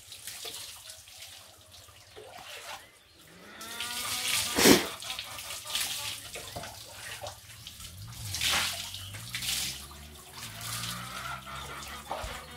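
Water scooped from a concrete wash basin with a plastic bowl and poured over a wet dog during a bath, splashing onto the dog and the concrete floor in a few separate pours, the loudest about five seconds in.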